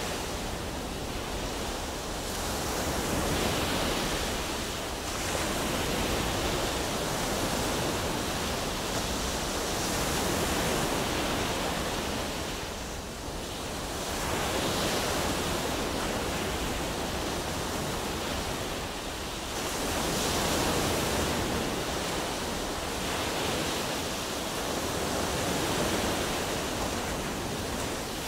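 Steady rushing noise that swells and eases every several seconds.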